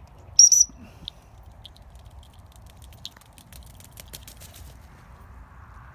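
A single short, high-pitched whistle blast about half a second in, a recall signal to the dog. Faint scattered ticks follow.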